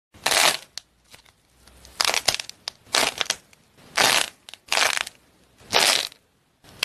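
Fruit-shaped clay squishies being squeezed by hand, their coloured shells cracking and peeling off the white filling with a crisp crackling crunch. There are six squeezes, about one a second.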